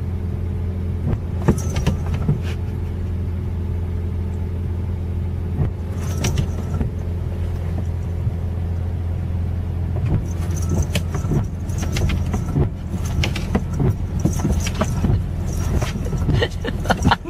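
Inside a car's cabin, the engine runs with a steady low hum, and windshield wipers sweep over the wet glass, giving occasional clicks and squeaks that come more often in the second half.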